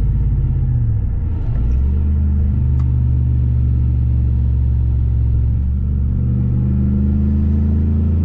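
Ford F-150 Raptor engine running under light cruising throttle, heard from inside the cab. About a second and a half in, the engine note changes as the automatic transmission shifts on its own. The transmission is hunting between gears, which the owner takes for a faulty valve body lead frame.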